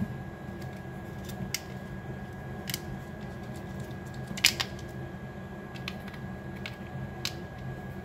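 Small plastic clicks and taps from handling an opened air-conditioner remote's casing and rubber keypad, scattered through, the loudest a quick double click about four and a half seconds in. A steady low hum lies underneath.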